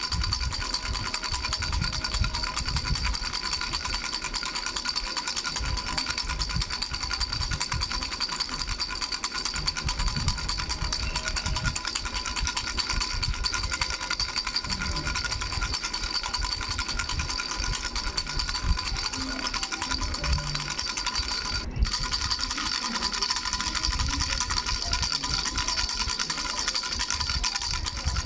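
A baby's three-bell rattle shaken rapidly and without pause, its bells jingling in a fast, even rattle over steady ringing tones. There is a momentary break about two-thirds of the way through.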